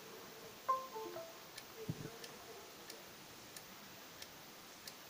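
Failing WD My Passport hard drive clicking faintly and regularly, about one click every two-thirds of a second: the drive still clicks instead of working normally. Early on, a short falling computer chime sounds from the laptop.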